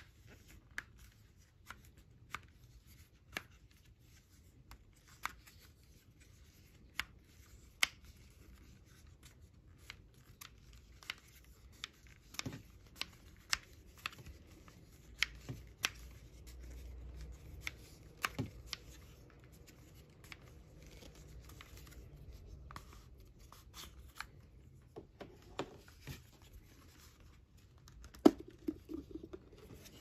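Wooden puzzle box being worked open by hand: scattered sharp clicks and taps of its wooden parts sliding and knocking, irregularly about one a second, with the loudest click near the end.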